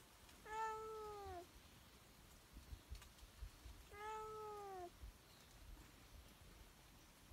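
A domestic cat meowing twice, about three seconds apart; each meow lasts about a second and dips slightly in pitch toward its end.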